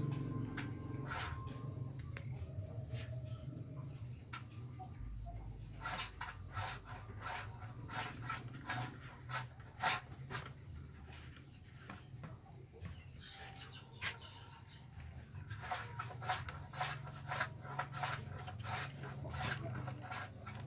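Caged fighting cricket chirping in a quick regular pulse, about five chirps a second, pausing for a few seconds in the middle. Light clicks and taps of the bamboo cage doors being slid and handled come in between.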